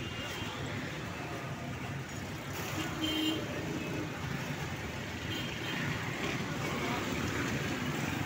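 Busy street ambience: a steady wash of road traffic with indistinct voices in the background.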